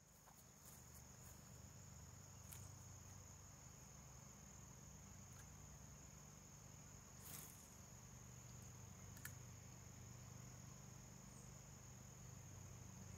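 Faint, steady, high-pitched chirring of an insect chorus, with a low hum beneath it. Two short faint clicks sound about two seconds apart, midway through.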